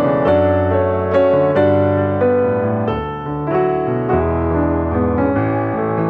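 Background piano music with gently changing chords and notes.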